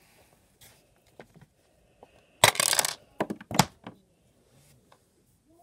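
Hard plastic toy playset pieces being handled on a table. About halfway through there is a loud half-second clatter, then a few sharp knocks.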